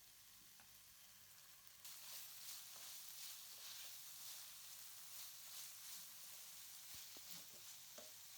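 Faint sizzling of chicken and vegetables frying in a pan, starting about two seconds in, with light scattered clicks of stirring.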